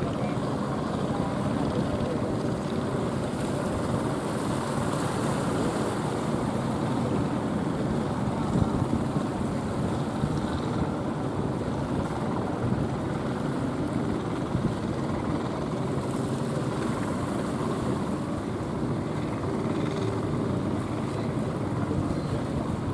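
Steady noise of rough surf and wind on the microphone, mixed with the engines of small outrigger fishing boats running through the waves.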